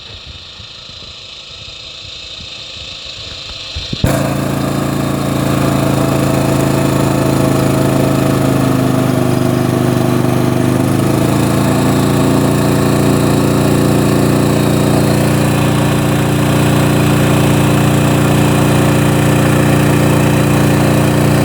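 Engine of the fire carrier's pumping system running at a steady speed, with a 4-inch Bowie feed pump delivering water. The sound is quieter for the first four seconds, jumps abruptly to a loud steady running, and shifts slightly in pitch about eleven seconds in.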